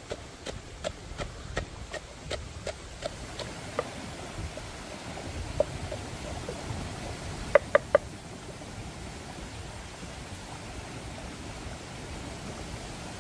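Knife chopping, about three quick strokes a second, slowing and stopping about four seconds in. Three sharp knocks in quick succession follow about eight seconds in, over a steady hiss.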